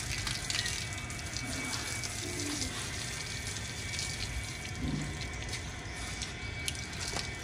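Water spraying from a hose onto a bull's hide and splashing on wet paving stones: a steady rush of water.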